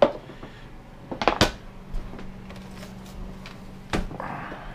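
Kitchen clatter: a few sharp knocks and clicks of doors, boards and utensils being handled, with a faint steady hum from about halfway.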